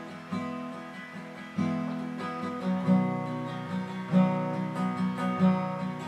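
Acoustic guitar being strummed. Single chords ring out at first, then the strumming comes more often from about three seconds in.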